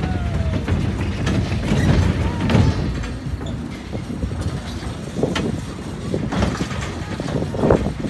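Small children's roller coaster train rolling past on its steel track: a steady low rumble of the wheels, with a few sharp clacks in the second half.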